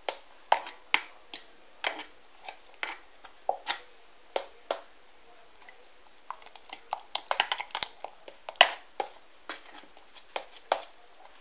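Thick yeasted batter being stirred in a glass blender jug: irregular short wet clicks and slaps, a few a second, busiest about eight seconds in.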